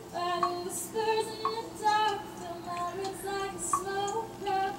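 Singing in a high voice: a melody of short held notes that step up and down, with faint music beneath.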